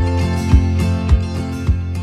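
Background music with a steady beat, about two beats a second, over held low notes.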